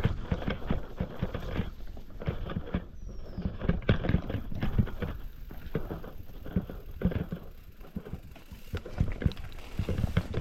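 Mountain bike jolting over a rough, rocky trail, a steady run of irregular knocks and rattles from the frame and wheels.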